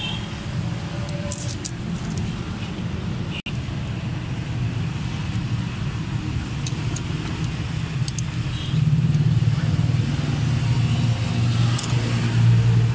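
Suzuki Cultus EFI engine running steadily at idle, getting louder about nine seconds in, with a few light clicks over it.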